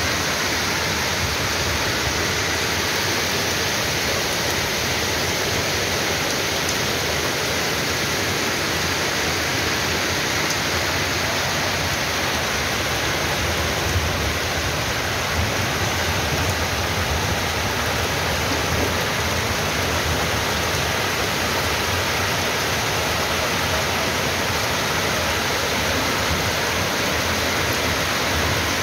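Heavy downpour of rain and hail at night, a dense, steady hiss of precipitation on streets and roofs.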